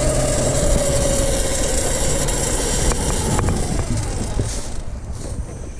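Mini bike's 212 cc single-cylinder engine, governor deleted and on an open header, dying as it runs out of gas: its note falls steadily in pitch and fades away, with wind noise over the microphone.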